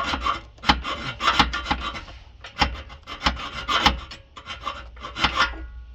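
A pipe cutter being worked back and forth around the steel exhaust pipe of a Dodge Charger, metal scraping on metal in irregular rasping strokes about twice a second.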